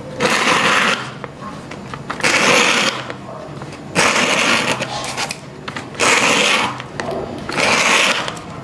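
A steel needle pushed through a paper cone, scraped across sandpaper in five rough scratching strokes about a second and a half apart. The cone works as a simple megaphone, sending the scratch's vibrations out in one direction so it sounds louder than the bare needle does.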